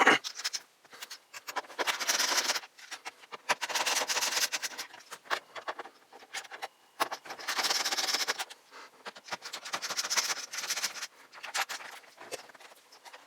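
A screwdriver backing out the radio's mounting screws, heard as about four separate spells of scraping and clicking with quieter ticks between them.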